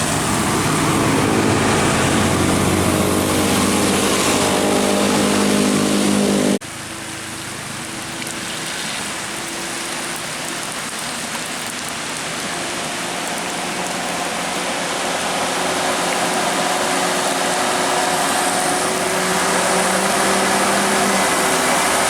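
A bus running, with a dense rushing noise and several steady low tones. About six and a half seconds in the sound cuts abruptly to a quieter stretch that slowly builds louder again.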